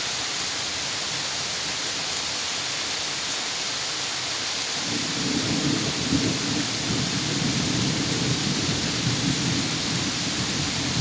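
Steady rain falling, with a low rumble of thunder that sets in about halfway through and carries on.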